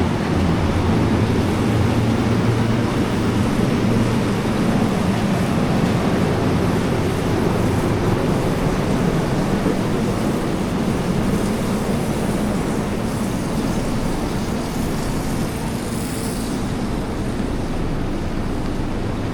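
Heavy rain falling with city street traffic underneath, a steady, unbroken noise.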